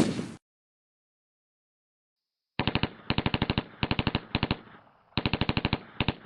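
Automatic gunfire in six short bursts of rapid shots, about a dozen rounds a second, starting about two and a half seconds in. A loud single bang is dying away at the very start.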